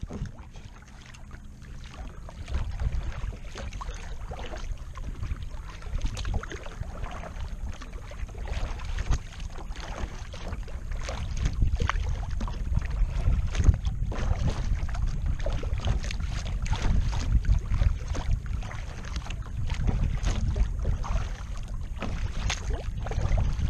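Wind buffeting the microphone as a steady low rumble, with small waves lapping and slapping irregularly against the plastic hull of a Pelican Challenger 100 kayak. The rumble grows stronger in the second half.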